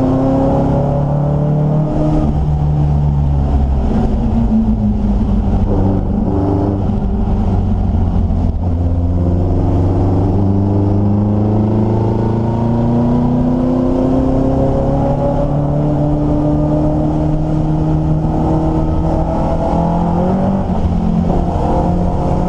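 Triumph Dolomite Sprint race car's four-cylinder engine at racing speed, heard from inside the cabin, its note rising under acceleration and dropping back repeatedly through gear changes and lifts for corners.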